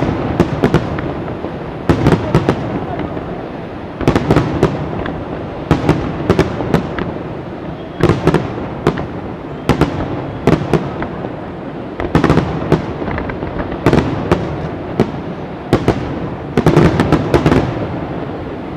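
Aerial firework shells bursting in quick clusters of sharp bangs about every two seconds, with a rolling rumble between the clusters. Near the end the bangs stop and the rumble fades.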